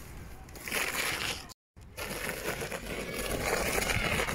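Scraping and crunching of a shoe sole and bicycle tyres skidding over gritty asphalt as a speedway bike rider brakes with her foot. Speedway bikes have no brakes. The sound cuts out briefly about a second and a half in, then comes back louder and steady.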